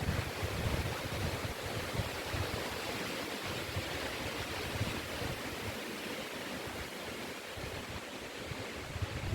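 Wind rushing steadily through forest trees, a surf-like hiss, with low gusts buffeting the microphone in the first couple of seconds.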